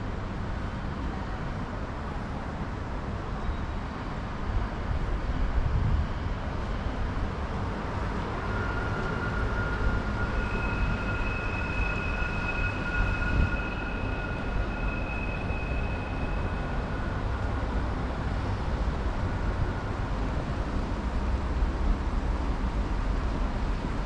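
City street ambience: a steady low rumble of traffic and wind on the microphone. A steady high-pitched whine rises out of it for several seconds about halfway through.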